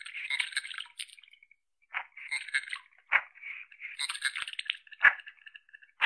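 Common goldeneye calling: irregular bursts of harsh, noisy calls broken by sharp clicks, with a few thin high tones between them.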